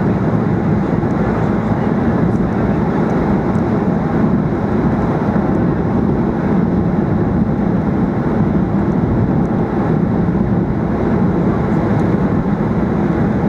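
Steady engine and airflow noise in the passenger cabin of a Boeing 737-800 airliner, an even, unbroken noise with no change in level.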